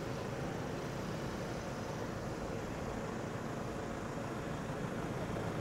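A steady low rumble with a faint hiss and no distinct events.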